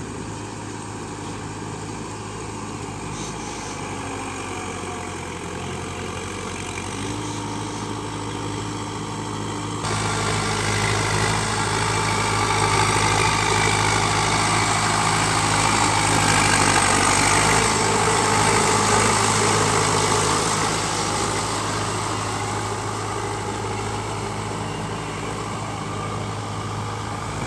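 Preet 6049 tractor's diesel engine running steadily under load as it pulls an implement through a flooded paddy field. The sound jumps suddenly louder about ten seconds in and then slowly fades over the last few seconds.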